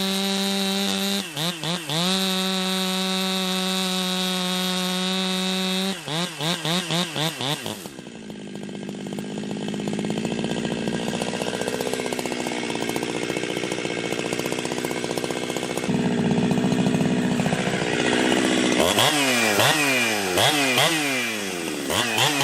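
Ported Jonsered 2071/2072 two-stroke chainsaw, with an exhaust mod, running at high revs with a couple of brief throttle drops, then cutting into wood under load for about ten seconds. Near the end the throttle is blipped, the engine pitch rising and falling about twice a second.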